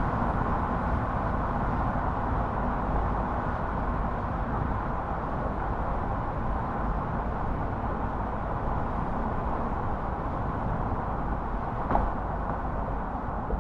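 Steady road noise of a car driving at speed: tyre rumble and engine hum, with a brief click near the end.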